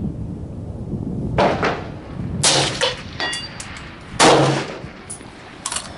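Semi-automatic 6.5 Grendel AR-style rifle firing a few shots, a second or two apart, with a short metallic ring, like ejected brass, between them.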